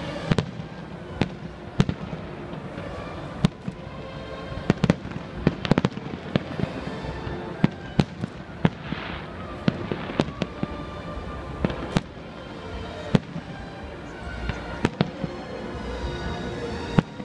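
A fireworks display, with aerial shells bursting in a string of sharp bangs at irregular intervals, more than a dozen in all. Music plays steadily underneath.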